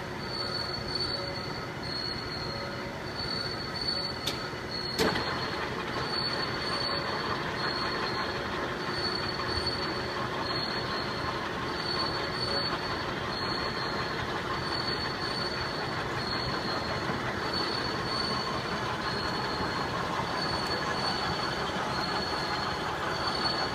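CNC router spindle running with the cutter boring a bearing bore: steady machining noise with a high squealing tone that repeatedly cuts in and out. A sharp click about five seconds in.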